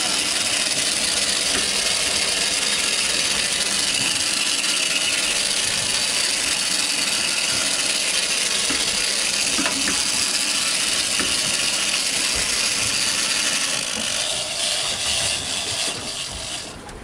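Trolling reel's drag screaming steadily as a hooked mahimahi runs off line, easing off and stuttering near the end.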